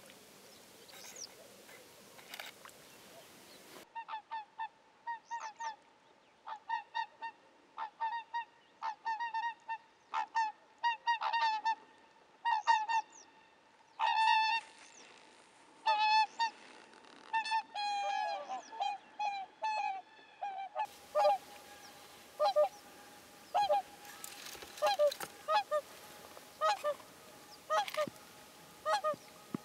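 Whooper swans calling: repeated short, pitched honks, often several in quick succession. They start about four seconds in and continue to the end.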